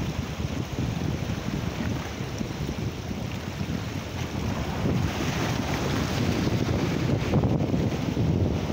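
Wind buffeting the microphone over small waves washing and breaking against a rocky shore. The surf grows a little louder about halfway through.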